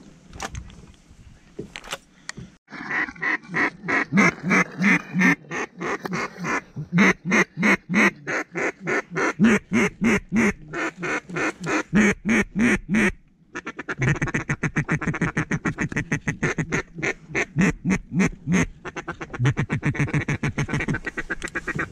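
Duck call blown in a long run of evenly paced quacks, about three a second, then after a short break a second, faster run of quacks.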